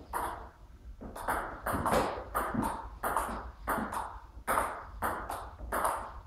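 Table tennis rally: the ball clicking off the players' bats and bouncing on the table in a steady alternation, about two hits a second, with a little hall echo after each.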